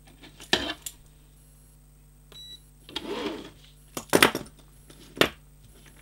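Clicks and metallic clatter of a pair of steel hinged handcuffs (Peerless Model 301) being handled, loudest about four seconds in and again about a second later. A short electronic beep sounds about two and a half seconds in.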